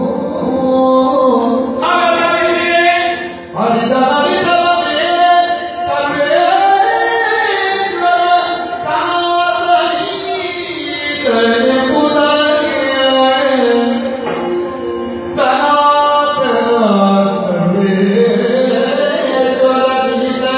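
A male Yakshagana bhagavata singing a slow melodic line with long held, gliding notes, over a steady drone. Maddale barrel drum strokes accompany him.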